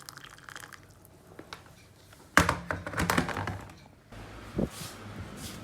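Water running from a kitchen tap for a couple of seconds in the middle, with faint clicks before it and a single knock after.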